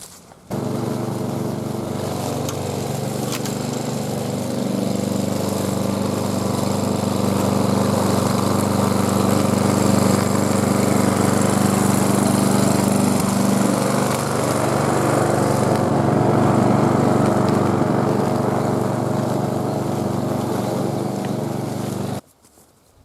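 A small engine running steadily at an even speed. It starts suddenly about half a second in and cuts off suddenly near the end.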